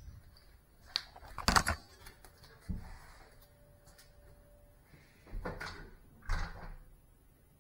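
A series of indoor knocks and thuds: a sharp knock about a second in, a louder clatter half a second later, another knock near three seconds, then two heavier thuds around five and a half and six and a half seconds. They sound like handling and door-type knocks, not the drone's motors.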